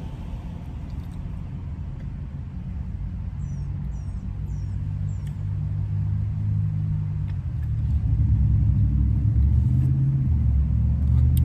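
Car engine running with a low, steady rumble that grows louder about eight seconds in. A few faint high chirps come in the middle.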